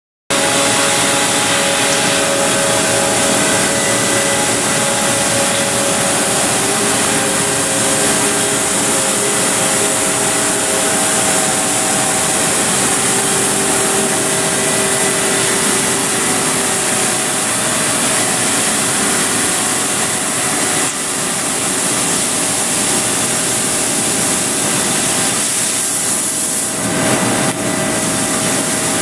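Mazak Space Gear 48 CNC laser cutter running while it cuts sheet steel: a steady, loud hiss with several steady hum tones from the machine. Near the end the hiss dips briefly and a lower rumble comes up.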